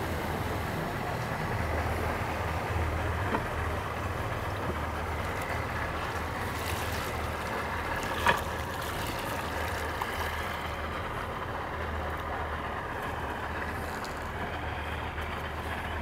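Boat engine running steadily at low speed with a low hum, over water and wind noise; a single brief knock about eight seconds in.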